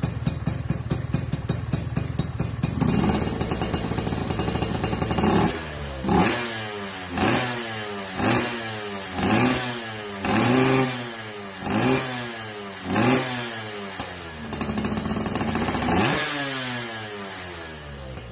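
Two-stroke motorcycle engine breathing through an aftermarket YY Pang exhaust, idling with a rapid popping. It is then revved: one longer rev, a run of about seven short throttle blips about a second apart with the revs falling quickly after each, and a final longer rev before it drops back to idle.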